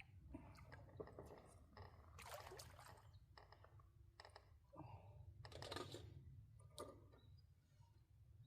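Near silence with faint scattered clicks and brief rustling noises over a low steady hum.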